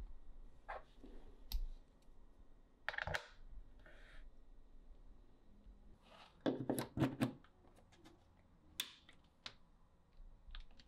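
A power cord being handled and plugged into a wall socket: light rustles and scattered sharp clicks, with a cluster of knocks and scrapes about six and a half seconds in as the plug goes into the socket.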